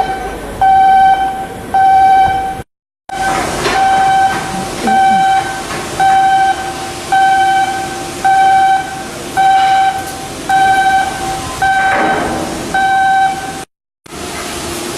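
Electronic warning beeper sounding a repeated pitched beep, about one beep a second, each roughly half a second long, over a background of shipyard work noise. The sound cuts out completely twice, briefly.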